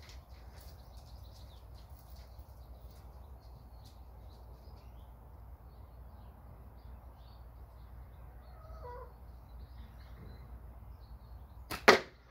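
Low wind rumble with small birds chirping and a crow cawing once, then near the end a loud sharp double crack of a catapult shot.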